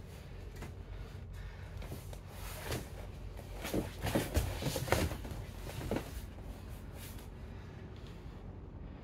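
Two grapplers' bodies scuffing, sliding and knocking on vinyl-covered foam mats during a no-gi scramble, busiest and loudest from about three and a half to six seconds in.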